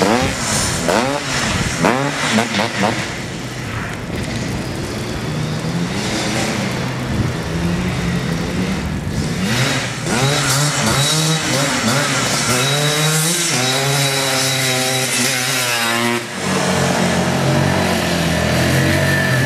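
ATV engines revving up and down over and over, the pitch rising and falling with each throttle blip. About 16 seconds in the sound cuts abruptly to a steadier engine note from a Polaris Magnum 325 quad.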